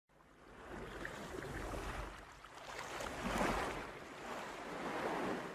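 Strong wind blowing over the microphone, swelling and easing in gusts with a low buffeting rumble.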